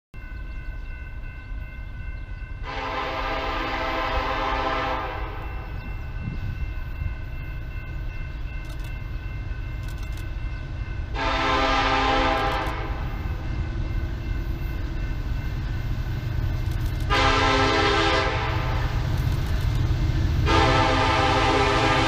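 Freight locomotive's multi-chime air horn sounding the grade-crossing signal: two long blasts, a short one, then a long one still sounding at the end. Beneath it a low rumble grows louder as the train approaches.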